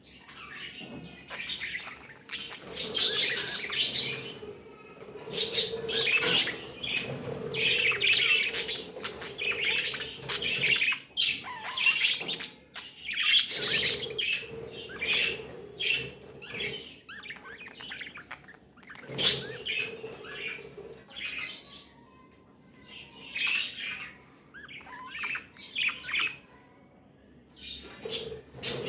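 Budgerigars chirping and warbling in a rapid, continuous chatter, thinning out briefly about two-thirds of the way through.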